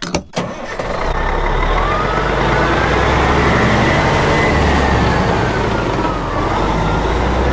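Sound effect of a heavy truck driving, with a deep engine rumble and road noise, and a siren rising slowly and falling once in the middle.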